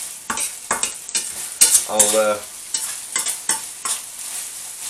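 Chopped bacon, steak and chicken sizzling in oil in a frying pan on a high heat, with a utensil stirring and scraping through the meat in a series of quick strokes.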